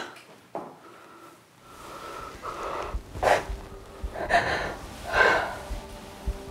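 Heavy, uneven breaths and gasps from people in an emotional embrace, about five of them spread through the moment.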